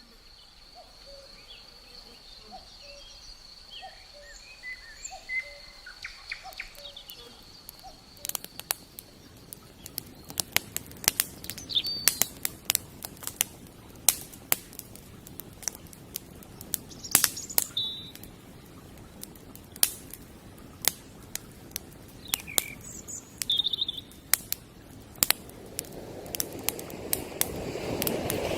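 Small birds chirping, with a steady high thin tone for the first several seconds. Through the middle come many sharp clicks and snaps among scattered chirps, and a rushing noise swells near the end.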